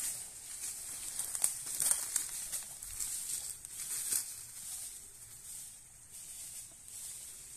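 Dry leaf litter and twigs crackling and rustling as hands rummage through the ground, in irregular crinkles that are busiest in the first few seconds and thin out after about four seconds.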